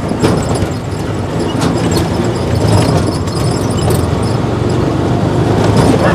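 Steady running noise of a ride on a small motor vehicle, with the engine's low hum under wind and road noise.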